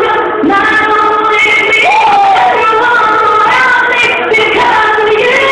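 Loud singing by several voices at once, with music underneath.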